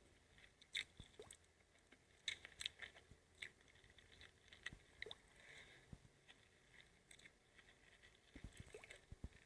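Faint eating sounds: scattered wet mouth clicks and soft squishy chewing, a few sharper clicks standing out here and there.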